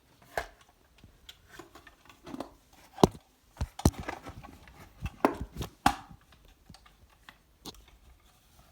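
Scattered clicks and knocks of a vintage Dr. Nagel Valenda camera being handled, its back opened, with the loudest cluster about three to six seconds in.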